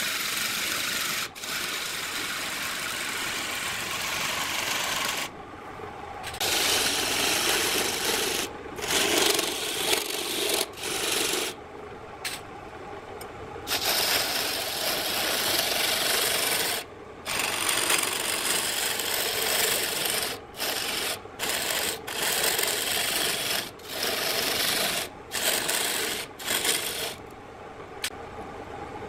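A spinning wooden vase on a wood lathe being sanded by hand: a steady rasping hiss of abrasive on the turning wood. The sound cuts out abruptly for short moments several times.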